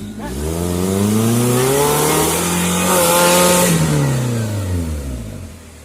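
Suzuki Jimny 4x4 engine revving up under load, held high for a couple of seconds, then easing off near the end, with a hiss of spinning tyres or thrown mud at the peak.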